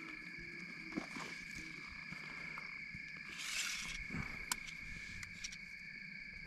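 Crickets chirping steadily, with a few faint clicks and a brief rustle about three and a half seconds in.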